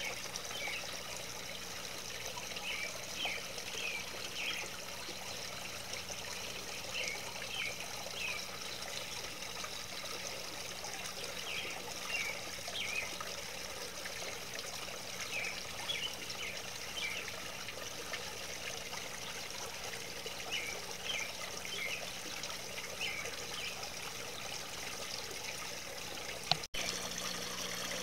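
Garden water fountain trickling steadily, with short high chirps every few seconds and a single sharp click near the end.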